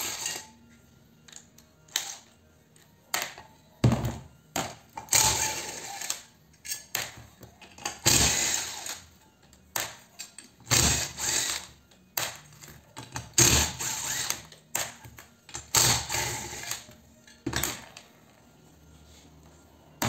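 Cordless impact driver backing screws out of the metal housing of an ironing device, running in repeated bursts of about a second with short pauses between.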